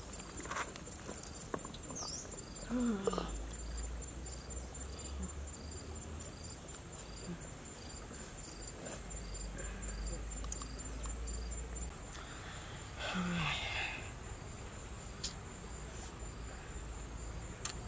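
Insects chirping faintly: a steady high insect drone, with a cricket-like chirp repeating about twice a second that stops about two-thirds of the way through. A few knocks of bare feet on river stones near the start.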